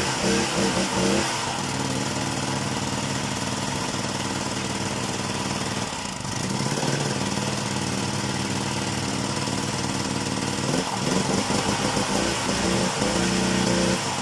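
Small petrol generator engine running unevenly, its pitch changing rather than holding a steady governed speed: it sags and climbs back about six seconds in, and wavers again near the end.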